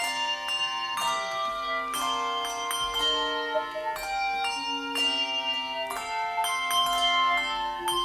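Handbell choir playing a tune: a steady stream of struck bell notes, each ringing on under the next.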